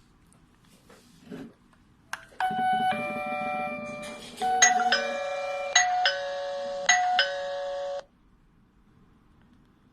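Electronic ding-dong doorbell chime from a wireless video doorbell playing a bell-like melody of several notes for about five and a half seconds, starting just after two seconds in, with a faint click just before it.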